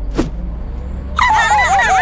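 Steady low engine rumble of a cartoon car, with a short grunt just after the start. About a second in, several high voices start singing over one another.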